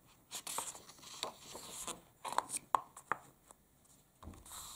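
Pages of a paperback picture book being turned and pressed flat by hand: irregular paper rustles and scrapes with a few light clicks, in a run over the first three seconds and once more near the end.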